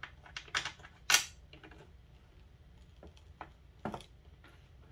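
Small hard clicks and taps of plastic and metal hardware being handled: bolts, lock washers and nuts being fitted to mount Ethernet surge protectors on a clear acrylic plate. About six separate clicks, the sharpest about a second in.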